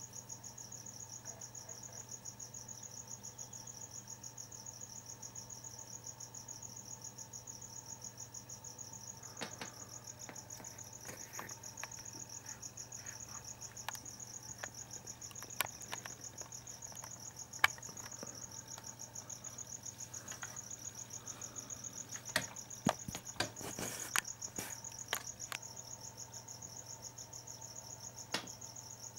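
Crickets trilling in a steady, fast high-pitched pulse, over a steady low hum. Scattered sharp clicks and knocks, most of them bunched together about three-quarters of the way through, come from the camera and telescope being handled.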